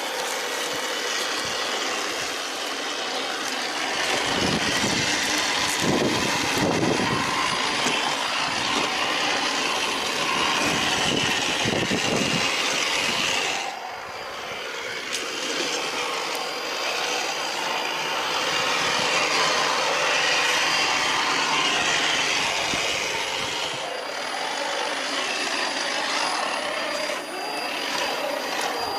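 Radio-controlled scale Land Rover Discovery truck driving through mud, its motor and drivetrain running steadily and rising and falling with the throttle, with some low rumbling over the first half and a brief drop near the middle.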